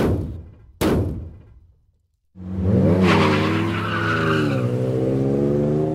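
Two quick falling swooshes, then after a moment of silence a car engine revving hard as it speeds away, its pitch climbing and dipping, with a screech of tyres.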